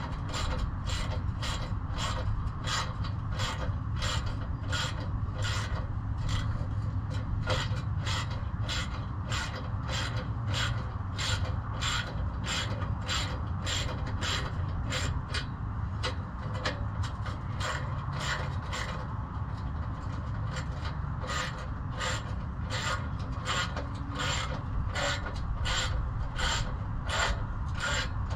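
Hand ratchet clicking steadily, about two clicks a second, as it tightens the nuts of a clamp-on exhaust O2 sensor bung.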